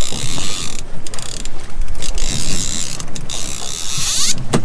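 A fishing reel's drag buzzing as a hooked king mackerel (kingfish) runs and pulls line off, with a couple of brief pauses.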